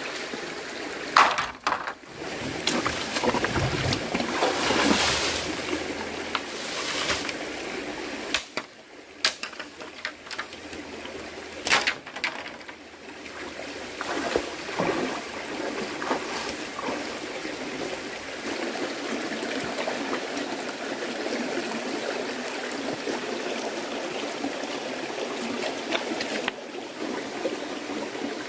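Flowing water, like a stream, running steadily, with a few sharp knocks and some handling noise in the first half.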